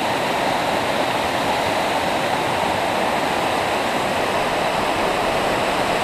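Creek water rushing over rocks in a cascade, a steady, full rush with no breaks.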